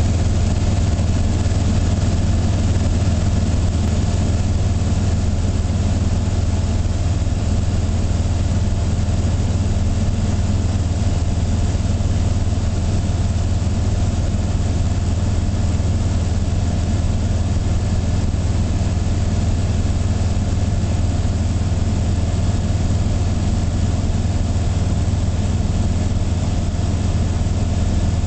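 Zenith CH701 light aircraft's engine and propeller running steadily in flight, a low, even drone heard from inside the cabin.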